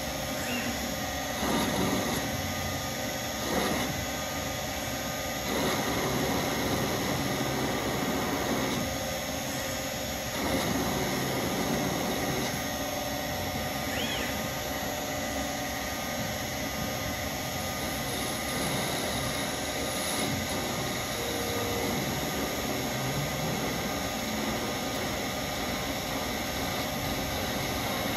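Shopmaster Mill Turn running as a CNC lathe, its spindle turning steadily while the cutter turns a part. A few short louder surges of cutting noise come in the first ten seconds or so.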